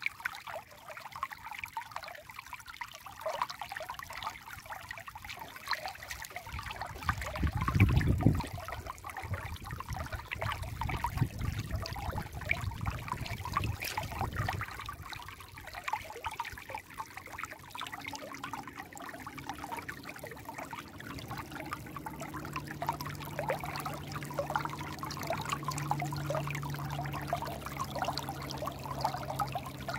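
Shallow mountain stream babbling and trickling over stones, a steady rush of water full of small splashes. A low rumble swells about eight seconds in and again a few seconds later, and a faint low steady hum joins in during the second half.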